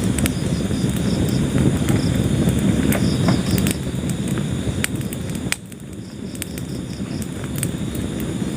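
Wood fire burning with a low rushing roar and frequent sharp crackles and pops. A steady pulsing chirp of crickets runs behind it. The fire noise drops suddenly about five and a half seconds in, then slowly swells again.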